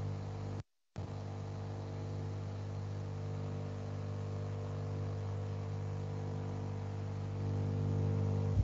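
Steady electrical mains hum with a buzz over it, which cuts out completely for a moment about a second in.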